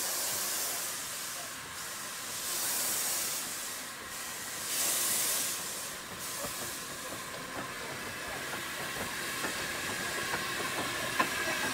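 South African Railways NGG16 Garratt steam locomotive moving slowly past, its cylinder drain cocks hissing steam in three loud surges. Then a steadier, quieter hiss with light clicks and knocks from the running gear and wheels as it draws alongside.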